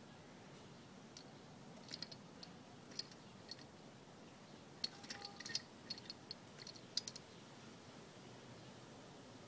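Scattered faint clicks and taps from a small wooden toy helicopter being handled and pushed along a wicker sofa arm: a few single clicks, then a quick cluster near the middle.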